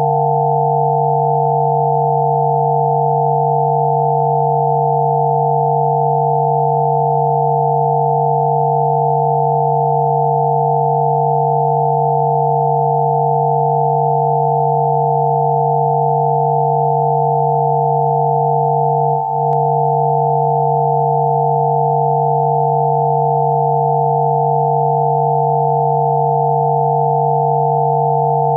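Steady, unchanging electronic sine tones layered together: one low tone under several higher ones, from a 'healing frequency' sound track. A brief dropout with a faint click about two-thirds of the way in.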